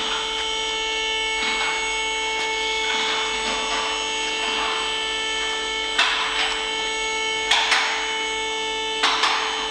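Hands rubbing and scraping a rubber repair-kit seal into the bore of a brake caliper held in a steel bench vise. There are sharp clicks about six, seven and a half and nine seconds in, as the seal refuses to seat. A steady hum of several tones runs underneath.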